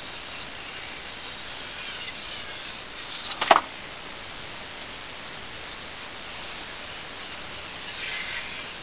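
A sharpening stone scraping along a steel machete edge over a steady hiss: faint scraping strokes near the end, and one sharp clink about three and a half seconds in.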